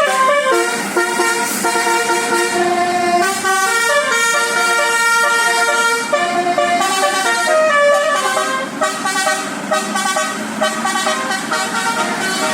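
Indonesian bus's basuri-style telolet musical air horn playing a tune: a run of held notes, several sounding together, that step up and down in pitch.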